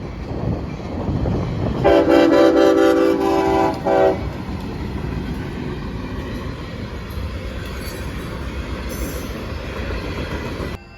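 Amtrak Auto Train passing at speed: the locomotive horn sounds one blast about two seconds in that lasts roughly two seconds, with a brief gap just before it stops. The steady rolling rumble of the train goes on under and after the horn.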